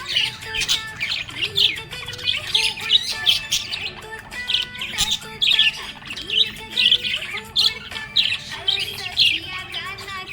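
Pet budgerigars chirping and chattering: a continuous run of many quick, high, warbling chirps with occasional harsher squawks.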